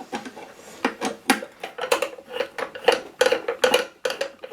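A long 4 mm Allen key clicking and clinking against screws and metal parts as screws are worked loose on the drone's electronics unit, in irregular sharp ticks several times a second, some ringing briefly.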